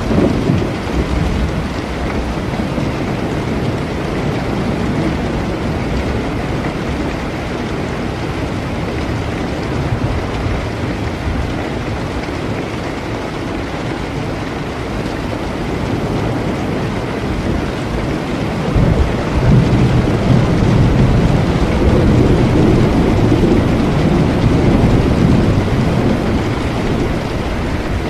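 Steady rain falling, with a long low rumble of thunder rolling in about two-thirds of the way through and fading near the end.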